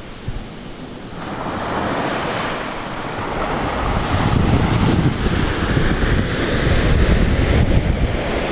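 Surf breaking and washing up a sandy beach, with wind buffeting the microphone. It grows louder from about a second in, with a heavier low rumble from about four seconds in.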